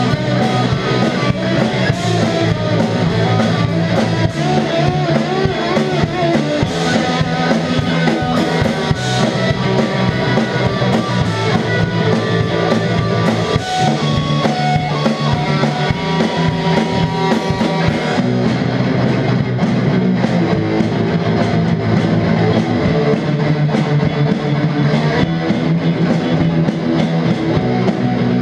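Live rock band playing a song: electric guitar, bass guitar and drum kit, loud and continuous.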